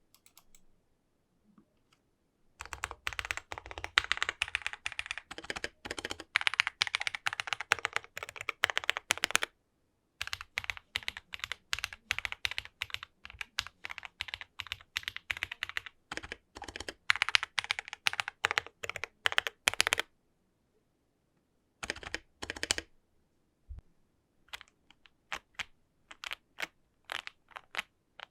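Meletrix ZOOM65 mechanical keyboard in its stock configuration being typed on: fast continuous runs of key clacks with a brief break, then a short burst and slower single keystrokes near the end.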